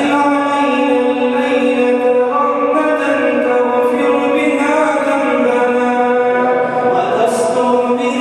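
A man chanting an Arabic du'a (supplication) into a microphone, drawing the words out into long held notes that shift in pitch every few seconds.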